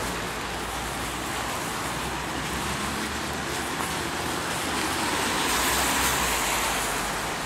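Steady traffic noise from cars on a rain-wet road, with tyres hissing on the wet surface. It swells for about a second around six seconds in as a vehicle passes close, then eases.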